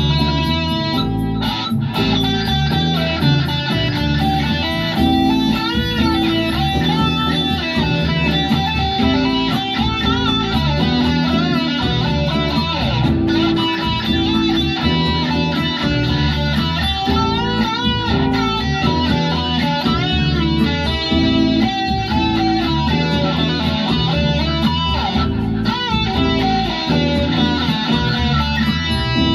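Les Paul-style electric guitar playing a lead line with bent and wavering notes, over bass and a steady beat.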